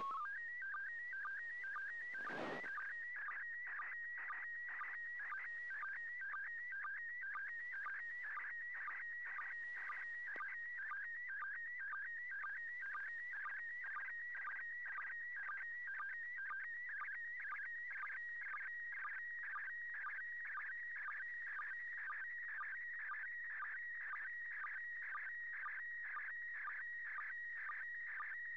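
Slow scan television (SSTV) signal from the International Space Station in PD120 mode, received over FM on 145.800 MHz. It is a continuous high warbling tone with a regular chirp about twice a second, the line sync pulses of a picture being sent line by line. A brief crackle of static comes about two seconds in.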